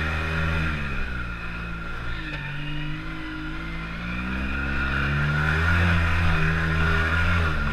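A freshly rebuilt engine running under way, its pitch dropping and rising a few times as the throttle changes, then holding steady near the end, with a steady high whine above it.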